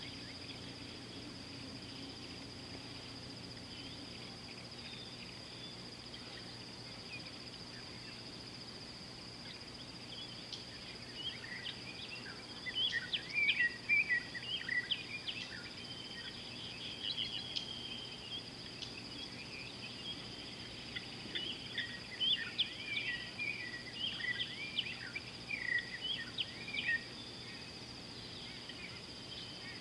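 Outdoor bush ambience: a steady high-pitched insect drone throughout, with birds chirping in quick scattered bursts from about a third of the way in until near the end.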